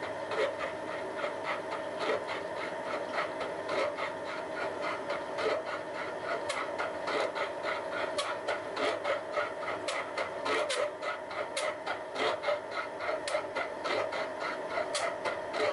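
Milling machine driving a custom-made triple-start gear hob that cuts the teeth of a worm wheel by free hobbing, the wheel being turned by the hob itself. A steady machine hum runs with quick, uneven ticking and scraping as the hob's cutting edges take chips.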